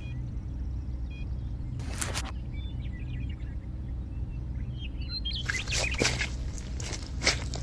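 Steady low engine drone, with birds chirping faintly over it. A short burst of noise comes about two seconds in, and from about five seconds a louder rough scraping noise with sharp clicks joins.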